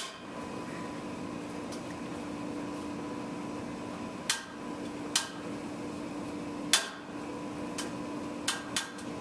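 Timber beam cracking under a midspan bending load in a test rig: a string of sharp cracks, the first about four seconds in and the loudest near the middle, coming closer together toward the end, as the wood fibres start to fail.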